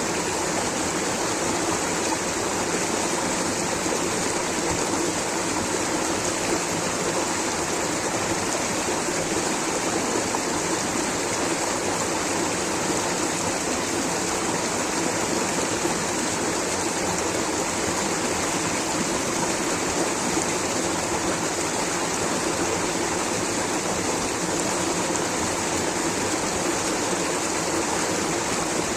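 Water rushing steadily over rocks in a stream or small waterfall: an even, unbroken hiss with no pauses or changes.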